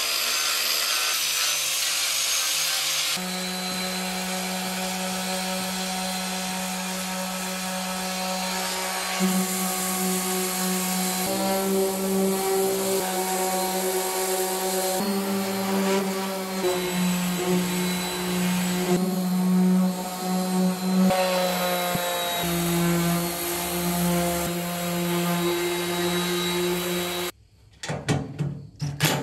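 Power sanders running on the painted steel panels of a fire-truck cab, a steady motor whine that shifts in pitch several times. Near the end the sanding stops and a cordless impact driver runs in a few short bursts on a bolt.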